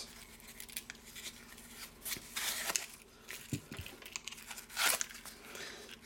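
Quiet rustling and scraping of a leather lighter pouch and its foam insert being handled, with a few light clicks; the louder scrapes come about two and a half seconds in and again near the end.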